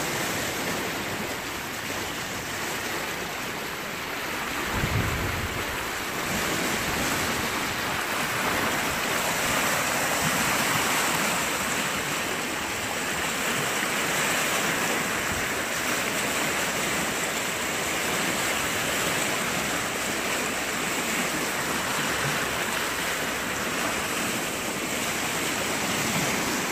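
Flooded creek running high, with fast muddy water rushing and churning in a steady, unbroken noise. A brief low thump about five seconds in.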